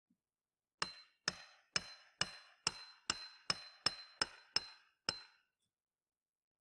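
Hammer blows on metal: eleven sharp strikes at about two a second, each with a short ringing tone, stopping about five seconds in.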